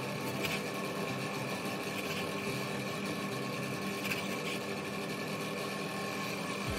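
Background music with steady held tones and a few faint clicks.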